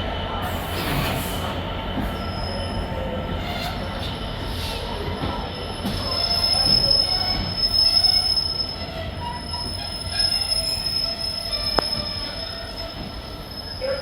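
Train wheels squealing on the rails as a train runs by: a steady high whine over the rumble of the train, loudest about halfway through.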